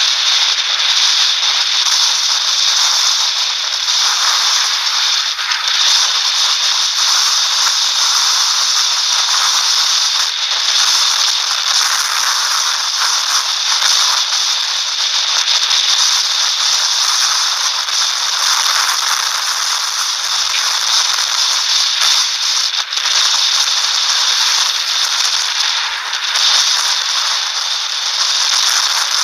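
Strong storm wind rushing across the phone's microphone near a tornado: a loud, even hiss with no pauses.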